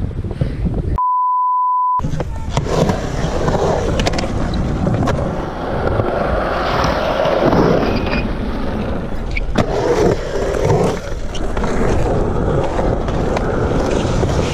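Skateboard wheels rolling on concrete, carving around a skatepark bowl, with scattered clacks and knocks from the board's tricks and landings. About a second in, everything else drops out for a steady one-second beep.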